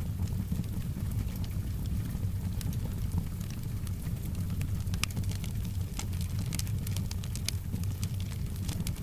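Wood fire in a fireplace crackling, with irregular sharp pops and snaps over a steady low rumble, and soft rain in the background.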